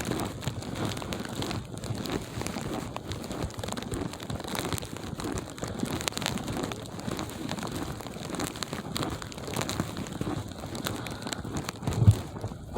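Footsteps crunching through fresh snow, a continuous irregular crackling and crunching, with one low thump near the end.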